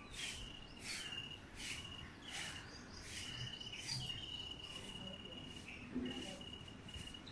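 Insect trilling at a steady high pitch in long unbroken stretches, over short high rasping sounds that repeat roughly once a second.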